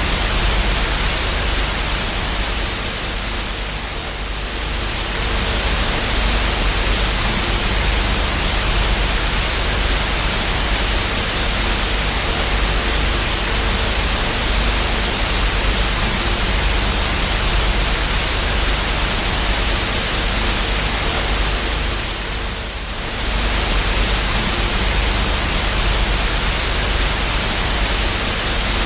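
Television static with no signal: a loud, steady hiss across the whole range with a low rumble under it, easing off briefly twice, about four seconds in and again near the end.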